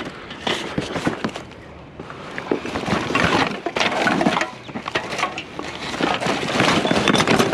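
Rattling, crackling and knocking of curbside junk being handled and moved about, a dense run of small knocks and cracks with rustling.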